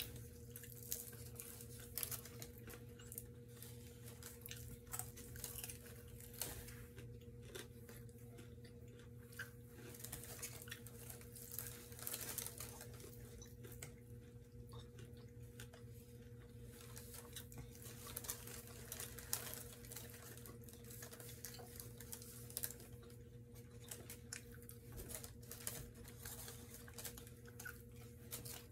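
Faint, close-up crackles and small clicks of fingers pulling apart fried chicken wings over crinkly wax paper, with some chewing, over a steady low hum.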